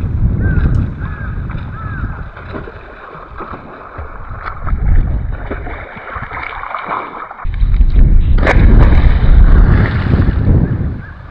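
A swimmer splashing through river water with front-crawl strokes, with wind buffeting the microphone; one louder splash about eight and a half seconds in as he goes under, leaving churning water.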